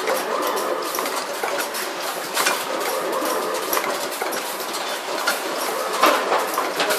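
Pad-printing machine and stepper-driven rotary indexing table running, a steady mechanical clatter of clicks and knocks, with a louder knock about two and a half seconds in and another near the end.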